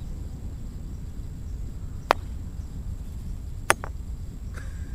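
Croquet mallet and balls: two sharp wooden clacks about a second and a half apart, the second followed at once by a smaller one, as a shot is played to knock the black ball away.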